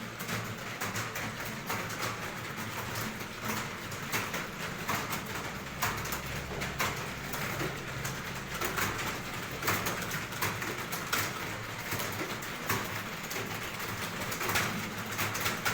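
Computer keyboards clattering as several people type at once: a dense, irregular stream of key clicks over a low steady hum.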